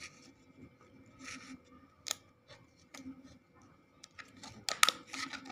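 Foil seal of a Kinder Joy egg being peeled back from its plastic shell by hand: faint crinkling and scattered small clicks, which grow louder and more frequent near the end.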